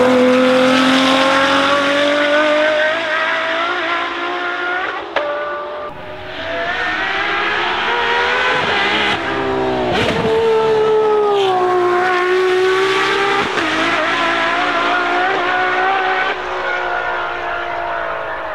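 Ferrari 599XX Evo's naturally aspirated V12 engine at high revs, its pitch rising and falling through gear changes, with a few sharp pops.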